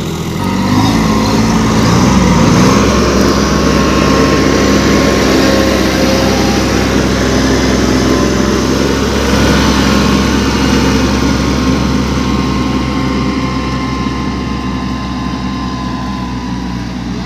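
Two compact four-wheel-drive diesel tractors, a Kubota B2441 and a Massey Ferguson 6028, running steadily under load as they pull tine cultivators through dry soil, with a thin steady whine above the engine note. The sound eases off a little near the end as they pull away.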